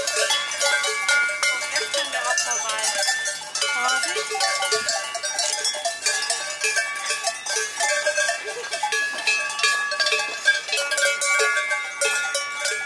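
Several cowbells on the necks of walking cows clanging unevenly, their ringing tones overlapping with frequent strikes as the animals sway past.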